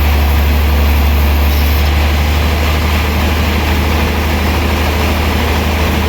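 Sawmill machinery running steadily, with a strong, constant low hum under an even noise.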